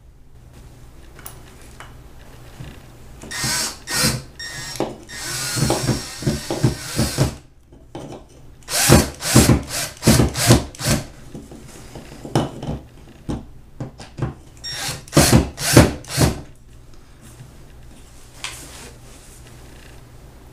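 Power drill-driver driving screws through a wooden bracket into plastic drywall anchors. It runs in a series of short trigger bursts, with one steadier run of about two seconds.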